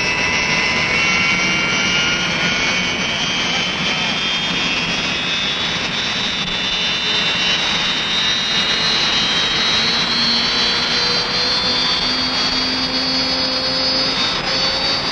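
Lycoming T53 gas-turbine engines of an unlimited hydroplane running up on a trailer firing: a steady loud roar with a whine that climbs slowly in pitch as the turbines spool up.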